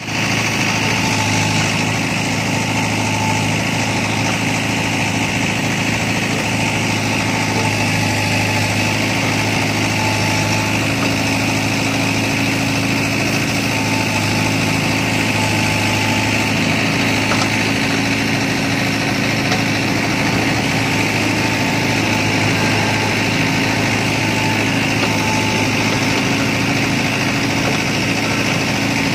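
Mahindra Yuvo 575 4WD tractor's diesel engine running steadily while it powers a tractor-mounted backhoe, with a faint whine that comes and goes.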